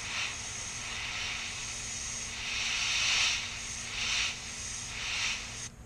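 Airbrush spraying paint: a steady hiss of air that swells and eases a few times and cuts off suddenly near the end.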